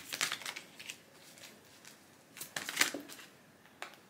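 Tarot cards being shuffled and handled, with papery rustling and flicking. The loudest flurry comes near three seconds in, and there is a short click near the end.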